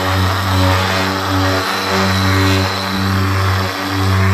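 Makita dual-mode polisher with a wool pad running in random-orbit (vibration) mode, not spin, working cutting compound over a plastic polycarbonate headlight lens. It gives a steady droning hum that wavers a little in level as it works.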